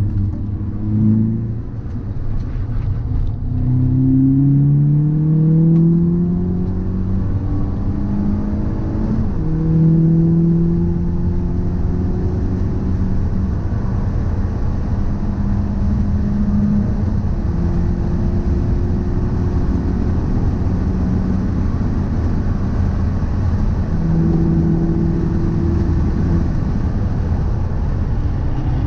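A car being driven. Its engine pitch rises through the gears in the first several seconds, then holds at a steady cruise over a heavy low rumble. The owner suspects this is abnormal noise and vibration from a driveshaft or wheel hub.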